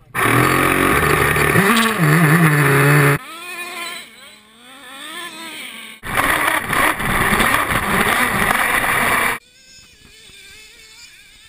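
Traxxas Jato 3.3's two-stroke nitro engine running and revving, very loud and close for about the first three seconds and again from about six to nine seconds in. Between and after those stretches, a nitro RC engine is heard farther off as a thinner whine that rises and falls with the throttle.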